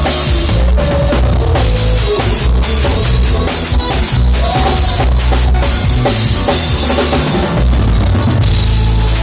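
Loud band music with a driving drum-kit beat over heavy bass, and a melody line wavering above it.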